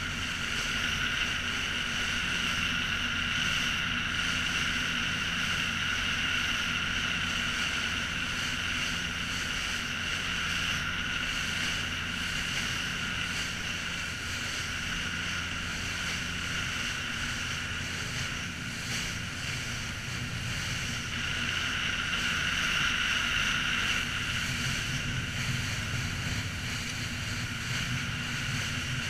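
Small boat's motor running steadily under way, a constant hum with a higher steady whine over the rush of water and wind. The whine eases a little midway and comes back stronger later.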